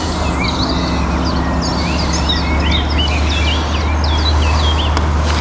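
Birds singing, many quick chirps and short whistled notes, over a steady low rumble that is the loudest sound.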